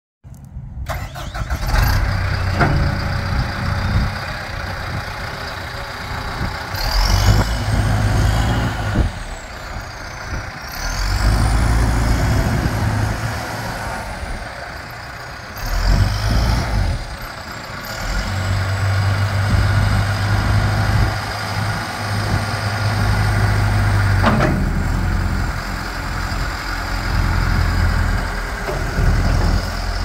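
John Deere 310K backhoe loader's four-cylinder diesel engine running and revving up and down as the machine moves and raises its loader. A high whine climbs and falls with each rev.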